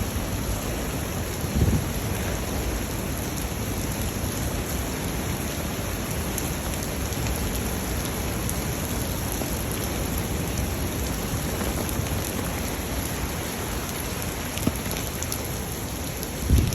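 Heavy typhoon rain pouring steadily, an even hiss of rain on surfaces. There is a brief low thump about two seconds in and another near the end.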